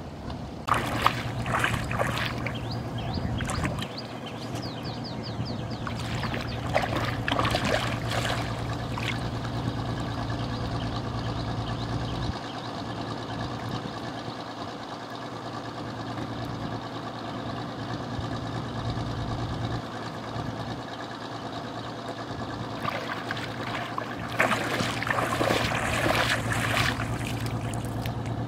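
Shallow river water splashing and sloshing in three spells as legs wade through it, over a steady low engine hum.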